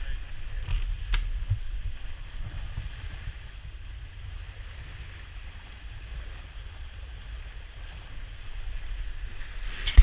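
Wind buffeting the microphone as a low rumble, over a faint hiss of water along the hull of a J80 sailboat under way.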